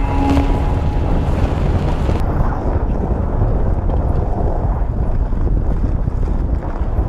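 Wind buffeting the microphone of an action camera mounted on the outside of a Volkswagen Vanagon as it drives over a snowy dirt track, over a steady low rumble of the van and its tyres. The high hiss drops away about two seconds in.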